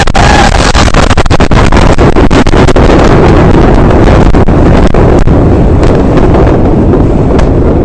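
Blast of the Beirut port ammonium nitrate explosion striking the microphone. It arrives suddenly and overloads the recording, then carries on as a long, distorted rumble with crackling that eases slightly toward the end.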